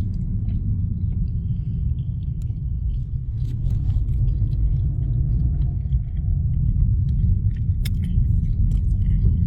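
Steady low rumble heard inside a car, with faint scattered clicks and ticks over it.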